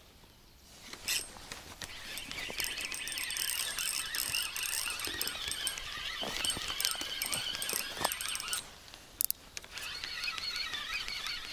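Spinning reel on a feeder rod being cranked to reel in a hooked fish, its gears whirring with fast fine clicking. The winding stops about eight and a half seconds in, two sharp clicks follow, and the winding starts again.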